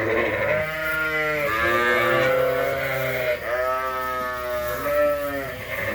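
Sheep bleating in a barn: several long, low baas from ewes, one after another and partly overlapping.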